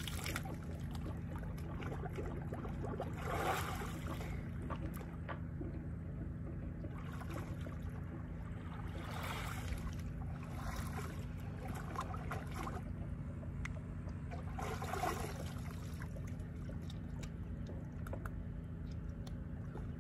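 Seawater sloshing and splashing in several separate surges, over a steady low rumble.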